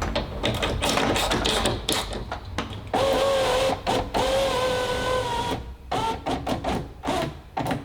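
Clicks and knocks of work on a car door, then about three seconds in the BMW E38's power window motor runs with a steady whine for about two and a half seconds as the glass travels, followed by more clicks. This is a test run of the window regulator after adjustment, the glass having struggled earlier.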